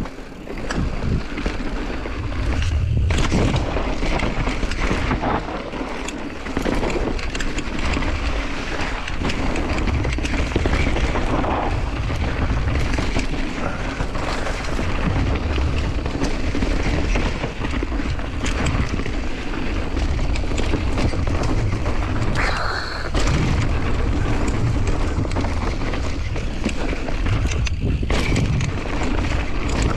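Mountain bike riding fast down a dirt trail: steady wind rumble on the microphone with the rattle of the bike and frequent sharp knocks over bumps.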